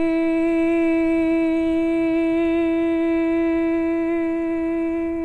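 A woman's voice singing one long, steady 'ee' [i] vowel on a single fairly high note, the voice-healing toning of the 'И' sound.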